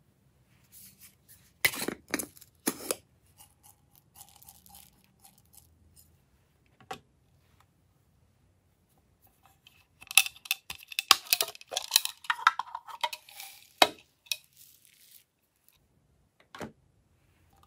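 Hard plastic toy containers handled by hand: a few sharp plastic clicks about two seconds in, then a dense run of rattling clicks from about ten to fifteen seconds in as small beads are shaken out into the trays of slime.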